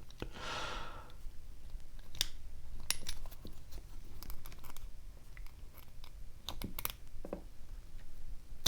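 Scattered light clicks and taps of small metal tools and lock parts being handled while a lock is taken apart, after a soft rustle in the first second.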